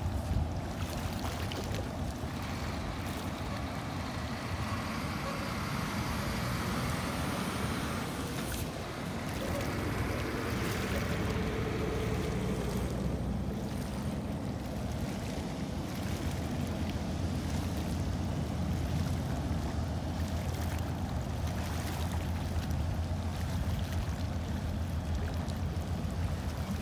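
Engines of the passenger fast ferry Tiger running with a steady low rumble as it pulls away from its jetty, growing a little louder about ten seconds in, over a constant rushing hiss of water.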